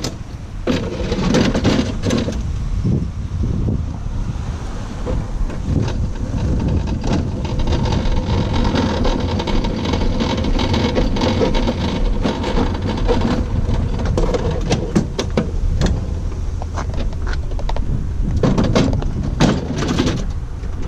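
A vehicle engine idling steadily, with knocks and rattles of objects being handled, loudest about a second in and again near the end.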